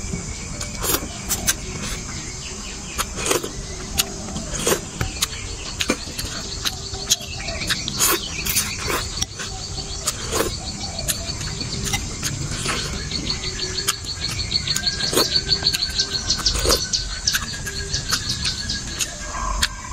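Close-up eating of noodle soup: slurping and chewing, with many short clicks of a spoon and chopsticks against a ceramic bowl. Chirping goes on behind it, with a fast trill in the second half.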